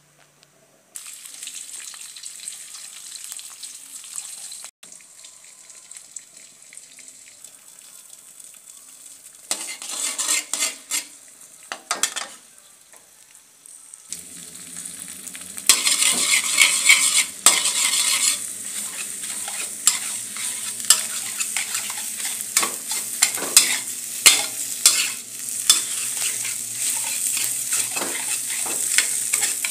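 Eggs frying in hot oil in a metal wok, sizzling steadily, while a metal spatula scrapes and taps against the pan as it breaks up and scrambles them. The sizzle gets much louder about halfway through and stays loud.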